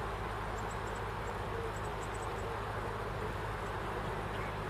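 A boat's engine running steadily while under way, a low even hum that does not change.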